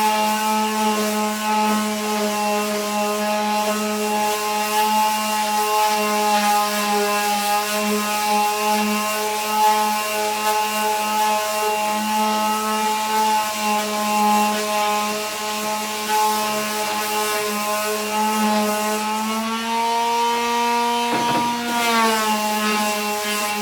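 Electric power sander running steadily as the edges of a wooden skateboard deck are sanded, a continuous motor hum. The pitch rises slightly near the end, then there is a brief knock and a dip in pitch as the wood is pressed against it.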